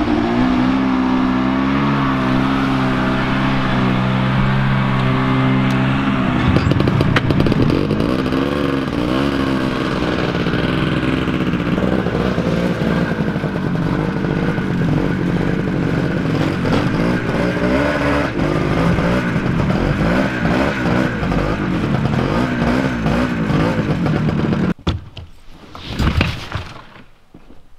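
Ski-Doo snowmobile engine idling steadily, then revving up and down as it is driven slowly, cutting off about 25 seconds in. A short clatter follows near the end.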